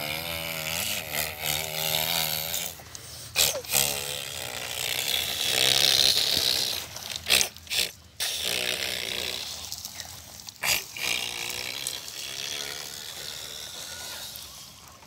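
A child imitating a truck engine by voice, making a wavering, buzzing hum, as the toy dump trucks are pushed over dirt. There is some scraping and a few sharp knocks.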